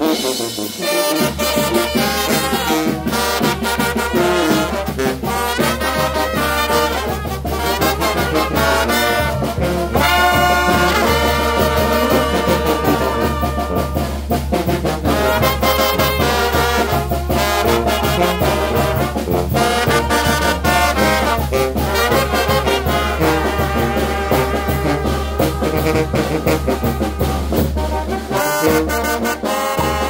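A Mixtec brass band playing a chilena live: trumpets and trombones carry the tune over a sousaphone bass line and a drum kit.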